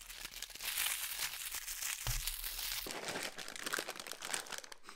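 A cereal box being opened: the cardboard top tearing open, then the clear plastic inner bag crinkling and rustling as it is pulled apart. The rustling pauses briefly a little before halfway.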